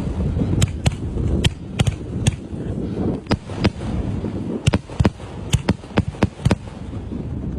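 Fireworks going off: a quick, irregular run of sharp cracks, a couple a second, over a steady low rumble.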